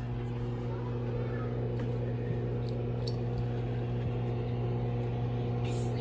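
Microwave oven running with a steady hum while it heats a raw egg. There is a brief click near the end.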